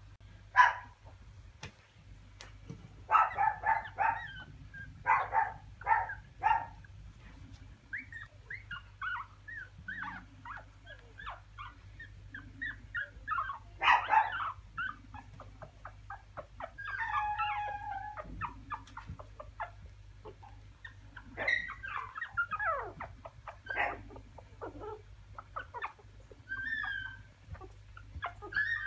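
Three-week-old Japanese Chin puppies whimpering and yipping: a string of short, high, squeaky calls in clusters, loudest about halfway through.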